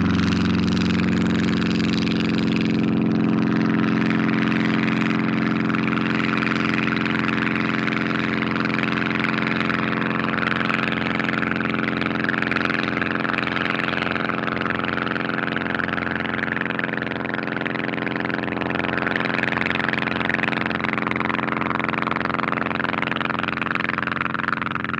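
Engine and propeller of a Demoiselle single-prop monoplane running at a steady, even pitch during take-off, heard from outside the aircraft, easing slightly in level near the end.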